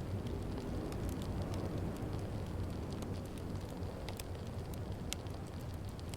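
Wood fire crackling in a fireplace: scattered sharp snaps and pops over a steady low rumble.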